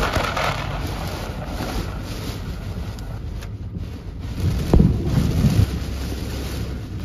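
Heavy rain beating on a moving car, heard inside the cabin, over steady road and wind rumble. About five seconds in a sudden low boom breaks in and rumbles briefly, likely a thunderclap.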